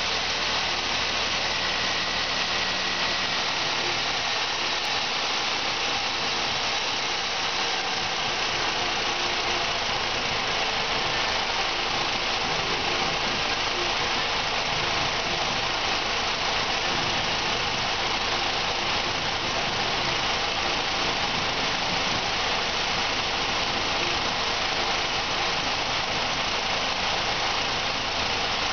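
2001 Chevrolet Cavalier's 2.4 L Twin Cam four-cylinder engine idling steadily under an open hood.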